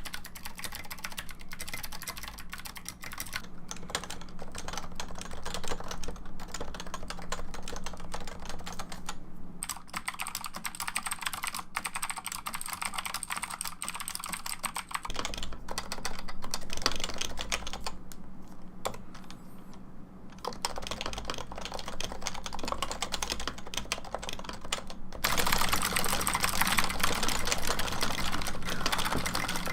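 Typing on a computer keyboard: a dense, continuous run of keystroke clicks with a few brief lulls, growing louder about 25 seconds in.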